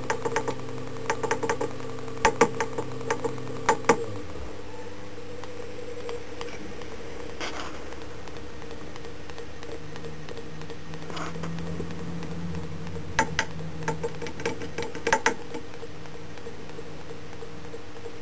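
Permanent-magnet motor under field-oriented control humming steadily. About four seconds in its lowest tones fall away quickly as the speed setpoint changes, and a new, different hum comes in around ten seconds. Quick clusters of sharp clicks come at the start and again around thirteen to fifteen seconds.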